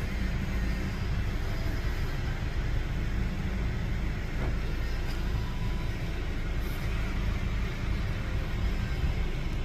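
Distant Boeing 737-800 CFM56 jet engines running at taxi power as the airliner turns at the runway end to line up for takeoff. The engines make steady noise with a heavy low rumble.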